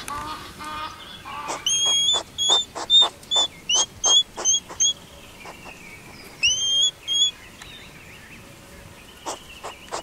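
Animal calls: honk-like nasal calls for the first second or so, then clusters of short high chirps, several rising sharply, mixed with sharp clicks, with a quiet gap in the middle.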